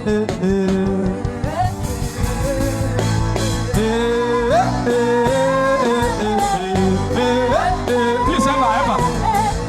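Worship music: a voice sings long, sliding wordless notes over a steady instrumental accompaniment with bass and a beat.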